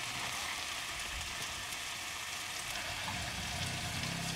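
Beef chunks sizzling steadily as they brown in oil in a pan crowded with too much meat to sear well. A low hum comes in about three seconds in.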